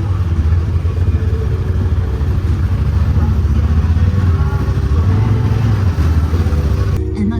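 Honda Talon side-by-side's engine running while driving, its note steady with small rises and easings in pitch. Music comes in abruptly near the end.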